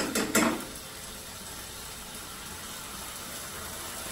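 A metal spoon clinks against a stainless frying pan a few times, then green curry paste and water cook in the pan with a steady simmering hiss.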